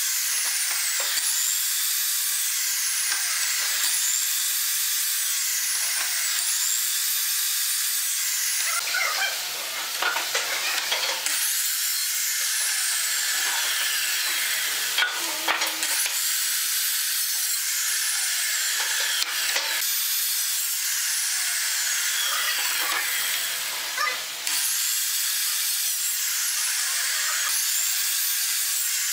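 Ryobi compound miter saw making quick repeated crosscuts through wooden boards: the motor whines up and winds down with each cut, about once every two seconds, with the blade's rasp through the wood in between.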